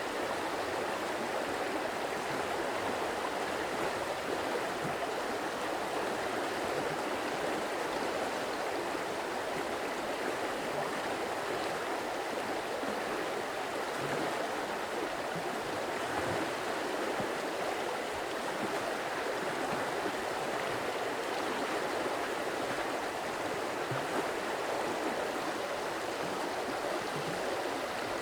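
Running water of a stream, a steady even rush with no breaks.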